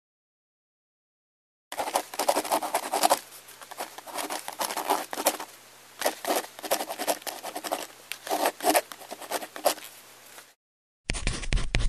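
Writing on paper: a pen or pencil tip scratching out quick, irregular strokes. It starts a couple of seconds in, breaks off briefly near the end, and a separate writing take starts just before the end.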